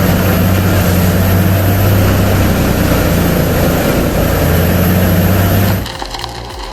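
A wood-chipping machine running at speed: a loud steady rush with a low motor hum. It cuts off abruptly near the end, giving way to a quieter, different machine sound.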